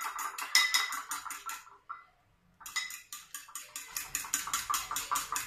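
Eggs being beaten with a fork in a small ceramic bowl: a fast, rhythmic clinking of the fork against the bowl, about five strokes a second, which stops for a moment about two seconds in and then starts again.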